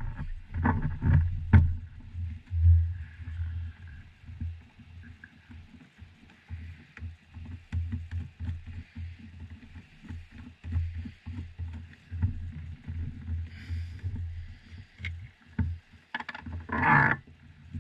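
Low, uneven rumble on the microphone, with small clicks and knocks as a plastic oil bottle and its brass hose fittings are handled. A louder scrape or rustle comes near the end.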